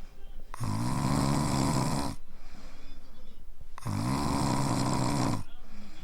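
Small Pomeranian–toy poodle mix dog snoring in its sleep: two snores in a steady rhythm, each about a second and a half long, with a quiet pause between.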